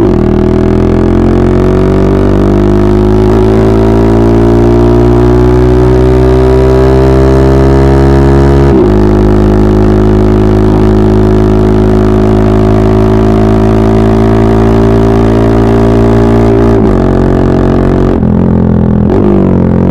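Honda Monkey 125's single-cylinder four-stroke engine through a full stainless-steel Akrapovic exhaust while riding, loud. Revs climb steadily, drop sharply about nine seconds in as it shifts up, hold steady, then fall away near the end as it eases off.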